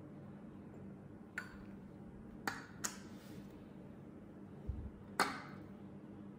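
Glass dropper pipette clinking against small containers while oil is transferred drop by drop: four sharp light clinks, the last and loudest near the end, with a soft dull thump just before it. A steady low hum runs underneath.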